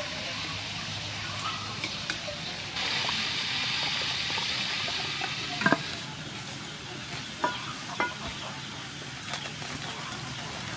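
Metal ladle and tongs stirring and scraping in an aluminium pot of boiled pork, with liquid sounds. After a cut, a steady hiss with a few sharp metal knocks as a frying pan is handled and set on a clay charcoal stove.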